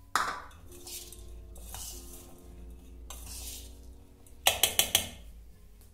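Metal clinks and rustling from a stainless steel bowl of soaked sago pearls being mixed, with a sharp clink at the start and four quick, loud clinks about four and a half seconds in. Soft background music plays underneath.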